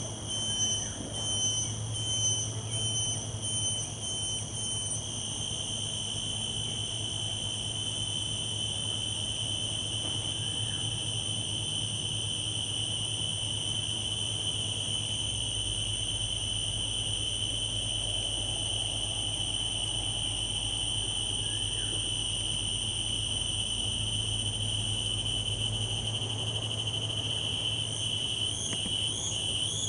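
An insect calling in a high, steady whine, pulsing about twice a second at first, then holding one continuous tone that wavers and rises near the end. A low steady hum lies underneath.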